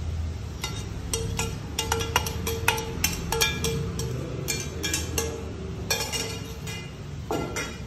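Metal kitchenware clinking and clattering: many sharp, irregular ringing clicks over a steady low hum.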